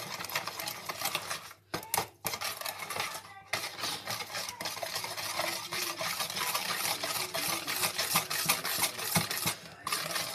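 Hand wire whisk beating eggs, sugar and oil in a plastic bowl: a fast, continuous run of clicks and swishes as the wires strike the bowl, with a few brief pauses.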